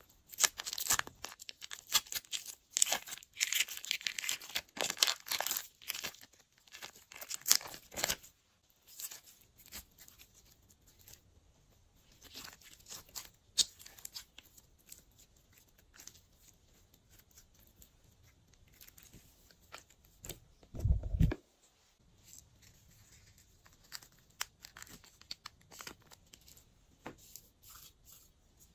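Glossy slime being mixed and stretched by hand, giving sticky crackling and popping that is dense for the first eight seconds and then sparser. A short low thump comes about two-thirds of the way through.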